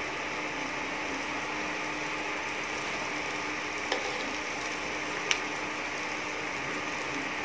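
Onions and garlic frying in oil in a nonstick pan: a steady sizzling hiss with a faint steady hum under it. Two light clicks, about four and five and a half seconds in, as a spoon knocks while butter is scooped into the pan.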